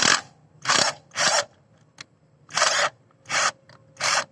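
JLD Tool 48S impact wrench triggered in about six short bursts of hammering, each under half a second, with brief pauses between.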